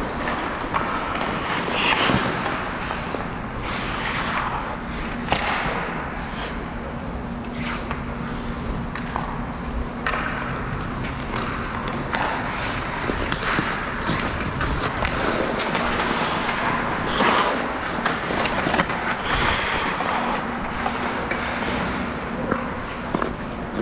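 Sounds of a 3v3 game in play: a continuous scraping hiss broken by frequent sharp knocks and clacks, with a faint steady hum at times.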